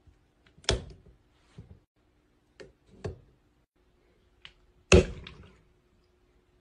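Hard plastic knocks and clicks from a hand tapping and pressing the orange cap of a Gatorade GX squeeze bottle: about six separate knocks, the loudest a sharp snap about five seconds in.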